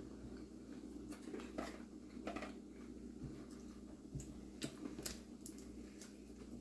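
Quiet room with a steady low hum and a few faint, scattered clicks: the small mouth and handling noises of people chewing chocolate.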